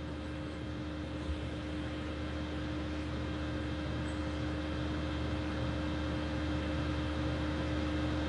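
Steady room background noise: a low hum with a constant faint tone over an even hiss, and one faint knock about a second in.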